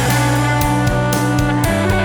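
Instrumental rock music: electric guitar chords held over bass, with steady drum hits.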